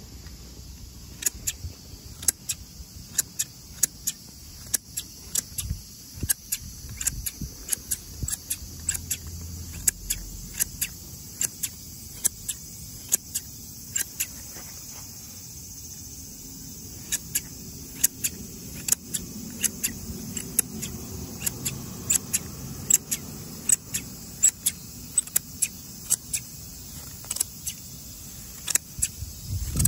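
KAMAKI hand lawn shears snipping grass, their steel blades closing with a sharp metallic snip about twice a second, with a short pause about halfway through.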